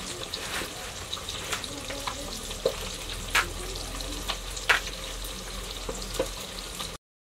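Cauliflower florets snapping and being cut against an upright floor blade, with a few sharp cracks, over a steady crackling hiss from the wood fire in the clay stove. The sound cuts off abruptly near the end.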